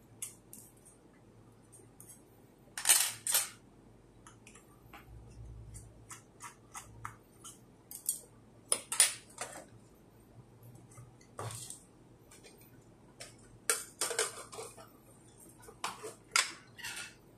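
Small metal hand tools, tweezers and a precision screwdriver, clinking and tapping on a desktop as they are picked up and set down, among small handling clicks. The clicks come in irregular groups, the loudest about three seconds in and near the end.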